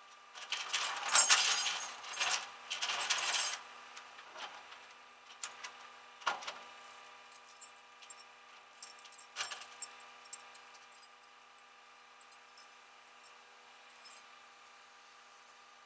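Tow chain and hooks rattling and clinking in a few bursts for about three seconds, then several single clinks over the next six seconds, as the chain is hooked under the wrecked car.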